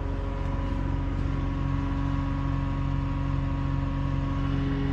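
An engine idling steadily, a low even drone with a regular fast pulse.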